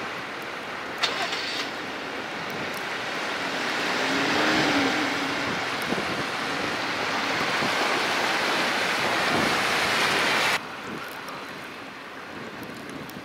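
Pickup truck ploughing through deep flood water, its tyres throwing up a steady rushing spray that swells as it passes close. The rush cuts off suddenly near the end, giving way to a quieter wash of water.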